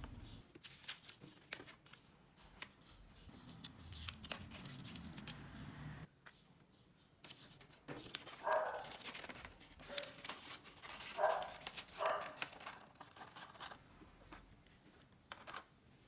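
Paper craft handling: scissors snipping and pink cardstock being folded and creased, a run of light rustles and clicks, with a few louder crinkles about halfway through.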